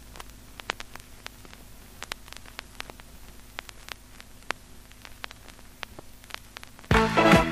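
Vinyl record surface noise from a needle in the lead-in groove: steady hiss and hum with scattered sharp clicks and pops. A song's band music starts near the end.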